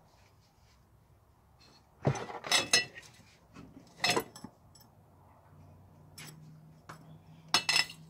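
Metal clanking and rattling against a steel workbench, in three bursts with a bright metallic ring: about two seconds in, around four seconds, and again near the end.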